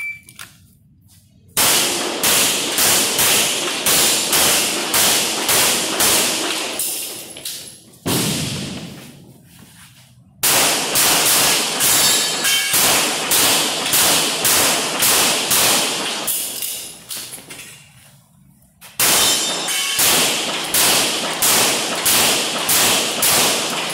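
Shot-timer start beep, then rapid handgun fire in three strings of about three shots a second, with quieter pauses between strings as the shooter moves between positions. The shots echo off the concrete walls of an indoor range.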